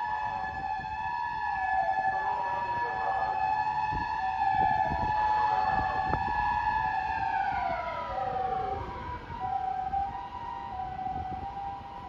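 Nissan Paramedic ambulance's electronic two-tone hi-lo siren alternating steadily, together with its mechanical motor siren wailing at a high pitch and then winding down, falling in pitch, from about seven to ten seconds in.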